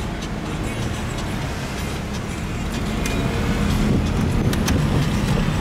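Car driving: a steady rumble of engine and road noise, growing somewhat louder about three seconds in.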